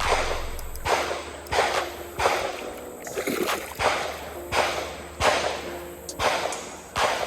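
Background music: a beat with sharp, snare-like hits about one and a half times a second over a steady held tone.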